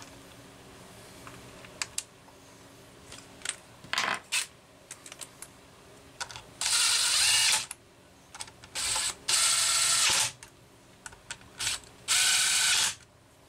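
Cordless impact driver running screws into a chainsaw's plastic starter cover: three bursts of rapid rattling hammering, each about a second long, the last near the end, with a few light clicks of handling before them.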